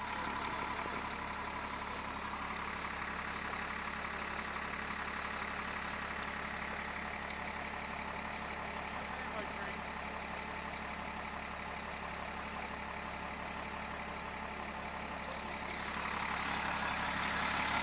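A vehicle's engine idling steadily, growing a little louder near the end.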